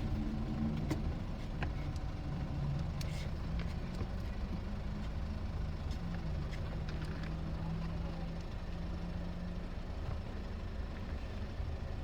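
Steady low vehicle rumble with a few light clicks scattered through it.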